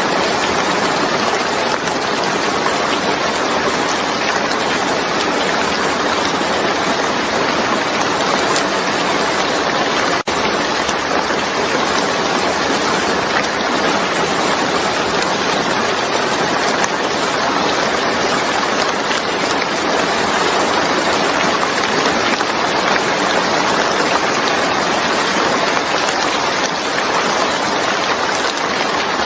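Steady heavy rain, a dense, even hiss of falling water, with a momentary drop-out about ten seconds in.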